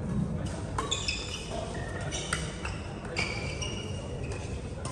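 Badminton rally: several sharp racket strikes on the shuttlecock, about a second or so apart, with short high-pitched squeaks of shoes on the court floor between them.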